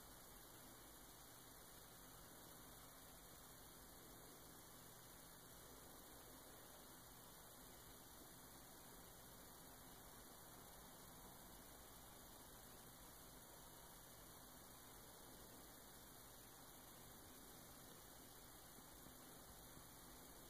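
Near silence: a faint, steady hum and hiss of room tone.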